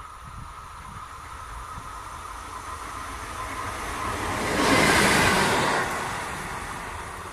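Single electric locomotive running light passes at speed: a rushing wheel-and-rail noise that builds over several seconds, peaks as it goes by about four and a half seconds in, then dies away quickly, with no wagons following.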